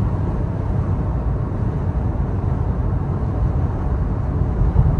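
Steady low rumble of road, tyre and drivetrain noise inside the cab of a 2023 Toyota Tacoma TRD Off-Road cruising at about 130 km/h.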